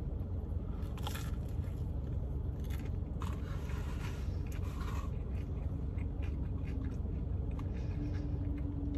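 A person chewing a bite of toasted sourdough grilled cheese sandwich, with faint, irregular mouth and crunching sounds over a steady low rumble.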